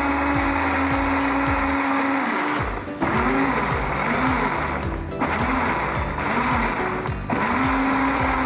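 Electric countertop blender running, puréeing a yogurt, lemon, onion, ginger and spice marinade. The motor's steady hum dips briefly about three times in the middle, and its pitch wavers in between.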